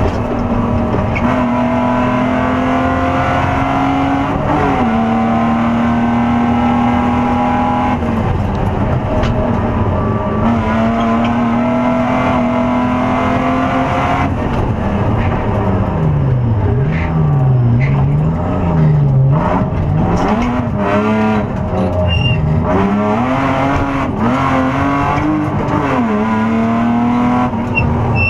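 BMW E36 325i's straight-six engine at racing revs, heard from inside the rally car's cabin. The note climbs steadily through the gears with short dips at each shift, then for several seconds in the middle the revs fall and flare repeatedly as the car brakes and downshifts, before it pulls hard again.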